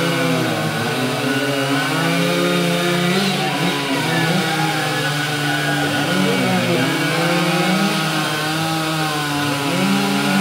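Two Stihl chainsaws running at full throttle at the same time, cutting discs off the ends of logs; their engine pitch dips and recovers repeatedly as the chains bite through the wood.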